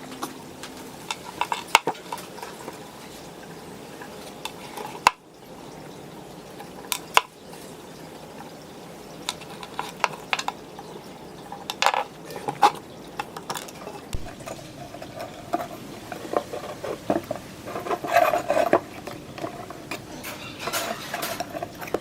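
Metal parts and tools clinking, tapping and scraping in irregular knocks, busier in the second half, as an old rusty electric fan is worked on by hand.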